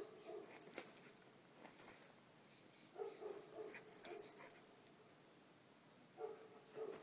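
Dog making short, faint vocal sounds several times while playing with a rooster, with brief scuffs about four seconds in as it lunges on the dirt.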